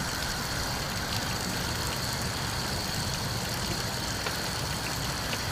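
Steady low mechanical rumble, like an idling engine, with a faint steady high whine and a few faint clicks.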